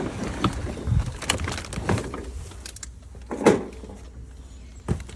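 Irregular knocks and clunks of totes being handled and unloaded from a car, with a louder thump about three and a half seconds in.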